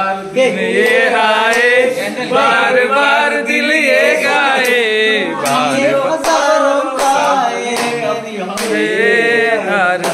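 A group of people singing together in chorus, with a few sharp clicks scattered through.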